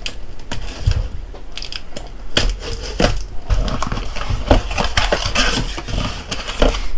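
Cardboard box being cut open with a utility knife and unpacked: scattered scrapes and clicks at first, then dense crackling of cardboard flaps and crinkling wrapping as the box is pulled open from about two and a half seconds in.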